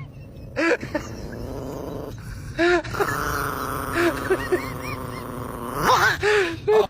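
A dog making a string of short calls that rise and fall in pitch, a few scattered and then several close together near the end, over a steady background noise.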